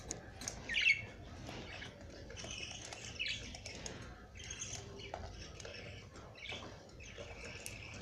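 Pet budgerigars chattering: a busy run of short, high chirps and squawks that comes and goes, with a few light clicks.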